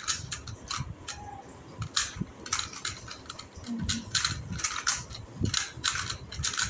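Two plastic Rubik's-type puzzle cubes turned rapidly by hand during a timed solve. Their layers make quick, irregular clicking and clacking.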